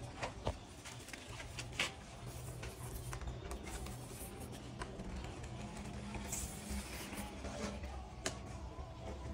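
A few light knocks and scrapes of hand tiling, ceramic tiles being pressed and tapped against a mortared brick counter base, over a faint steady low hum.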